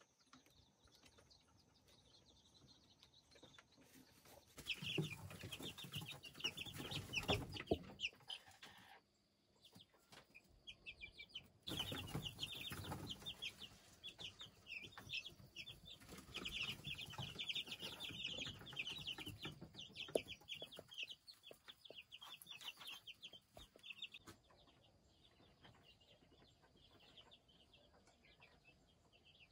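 A brood of wild chicken (junglefowl) chicks peeping busily in rapid, short, high calls. The calling comes in two long stretches, about five seconds in and again from about twelve seconds in, and dies down to faint near the end.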